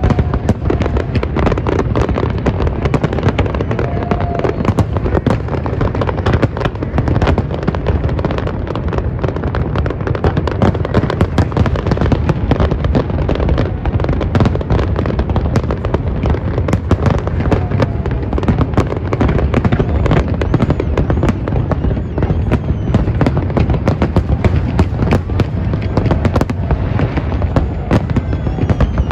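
A dense barrage of aerial firework shells bursting: many sharp reports a second running together over a continuous low rumble, with no pause.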